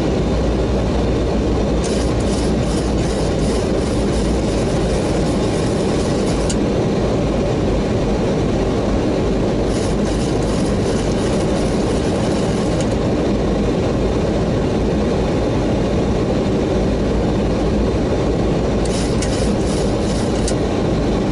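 Airliner cockpit noise on final approach in strong, gusty wind: a steady loud rush of airflow and engine rumble, with three spells of crackling rattle coming and going.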